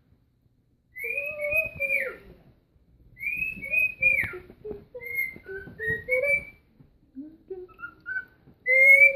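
Cockatiel whistling a tune in a run of short phrases of gliding notes, starting about a second in.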